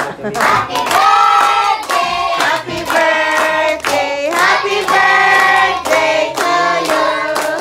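A small group of adults and children singing a birthday song together, clapping their hands along with it.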